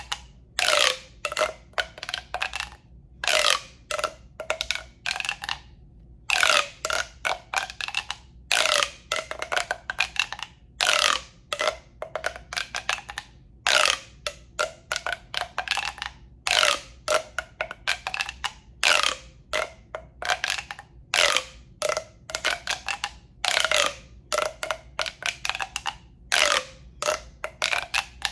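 A tube being handled close to the microphone for relaxation sounds: quick bursts of clicky, hollow sound, one to three a second, many with a resonant ring that rises in pitch.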